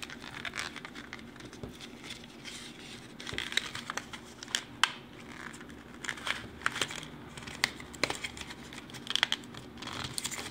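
A memory card's cardboard retail pack being torn open by hand: irregular crinkling and tearing of card with many sharp clicks, hard going to get into.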